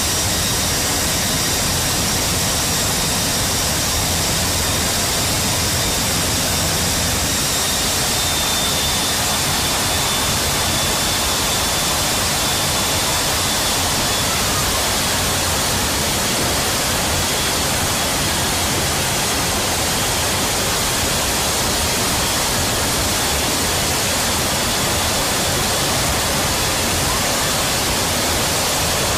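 Steady, loud rush of the airstream past the open paratroop door of a C-17 in flight, mixed with the drone and high thin whine of its turbofan engines.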